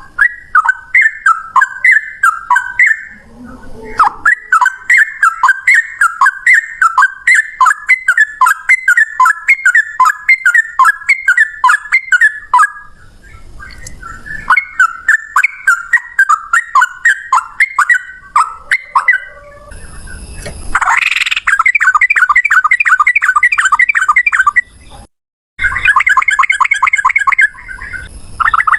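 Sooty-headed bulbuls singing in fast, repeated chattering phrases. About two-thirds through, the song turns into a faster, denser trill, which cuts out briefly and then resumes.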